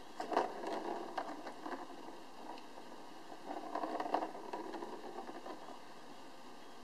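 A ball rolling and rattling around the plastic track of a cat's circular ball-track toy as a kitten bats it, with light taps, in two spells: just after the start and again about three and a half seconds in.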